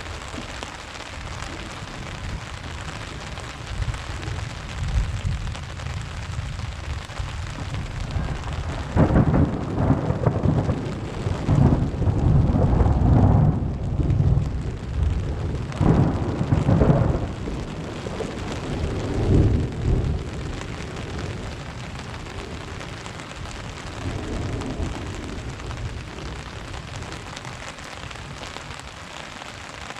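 Thunder rumbling in several long rolls over steady rain. The rumbling swells up about a third of the way in and stays loud until about two-thirds through, then eases back to the sound of the rain.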